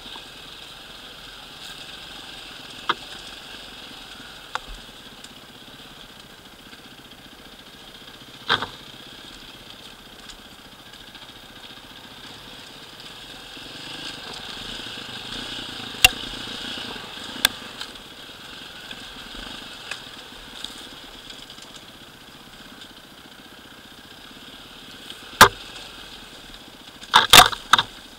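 Enduro dirt bike engine running at low revs as it rides over a rocky trail, with sharp knocks and clacks from the bike jolting over stones, scattered through the ride and loudest in a quick cluster near the end.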